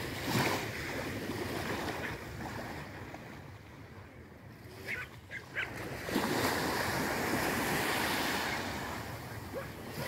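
Small Black Sea waves breaking and washing up a sandy shore, the surf swelling again about six seconds in. Three short high gull calls come just before the swell.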